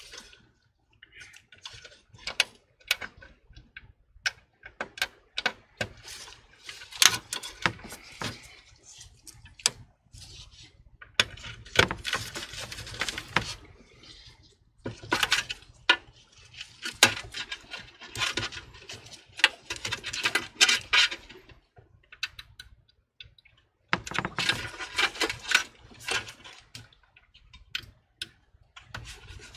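Hands in nitrile gloves handling parts inside a computer case: irregular clicks, taps and knocks of metal and plastic, with stretches of scraping and rustling.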